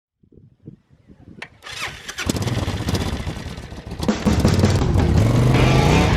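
An engine starting and revving, its pitch rising near the end, with rock music coming in over it.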